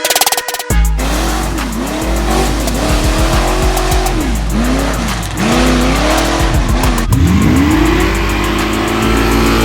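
A car engine revving up and down repeatedly, with tire squeal, over a hip-hop beat with heavy bass.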